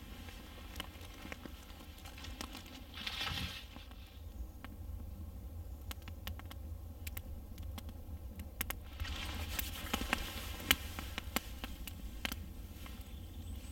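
Small campfire of dry twigs and kindling catching and crackling, with sharp pops that come more often in the second half. Two brief hissing swells, one about three seconds in and a longer one near ten seconds.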